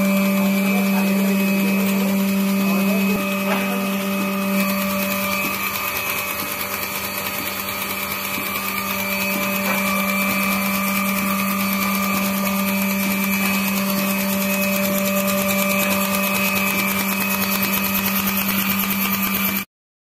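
Milking machine's vacuum pump running with a steady motor hum and hiss. It cuts off suddenly near the end.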